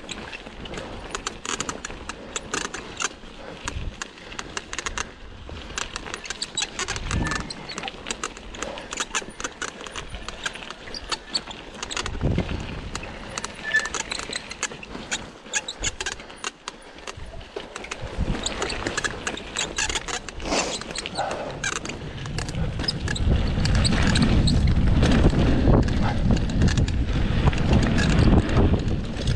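Cannondale Scalpel mountain bike rattling and clicking over a rough trail, with the squeaks that the rider says come from a bike needing sorting. A low rumble grows louder about three-quarters of the way through.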